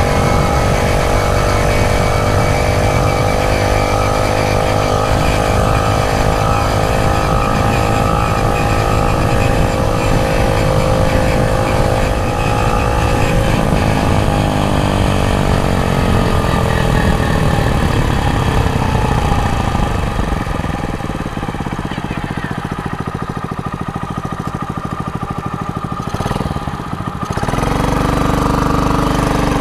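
49cc motorized-bicycle engine running at a steady pitch, then falling in pitch from about halfway through as the bike slows, and running lower and a little quieter for the rest, with a short dip near the end before it picks up again.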